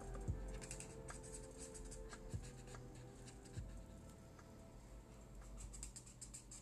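A marker scratching across paper in many short strokes, with a few soft knocks, over faint background music.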